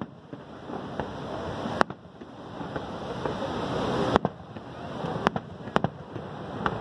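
Fireworks bursting overhead: about six sharp bangs at uneven intervals, over the steady rush of Niagara Falls.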